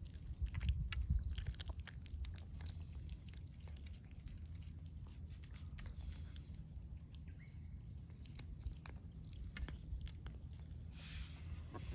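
Stray cat eating cat food: irregular chewing and biting clicks, close to the microphone, over a steady low rumble.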